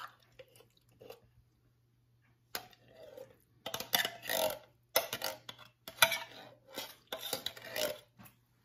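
Metal spoon scraping pork and beans out of a tin can into a slow cooker: irregular scrapes and clinks of spoon on can, with wet plops of the beans. It starts about two and a half seconds in after a short quiet and keeps up busily.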